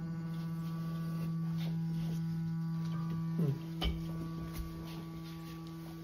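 Gas pressure regulator humming: a steady low hum with a stack of overtones, and a soft thump about four seconds in. The plumber takes the noisy regulator for a fault that will cause problems and should be reported to the gas utility.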